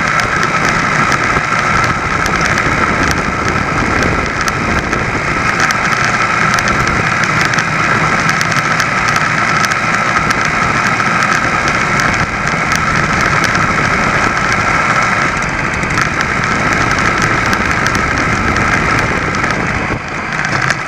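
ABG (Velo) VAP moped's small single-cylinder two-stroke engine running steadily while riding. The level drops slightly near the end.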